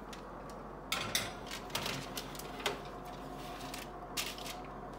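A sheet pan being put into an oven: several sharp clicks and metallic knocks between about one and three seconds in, and one more knock near the end, over a faint steady hum.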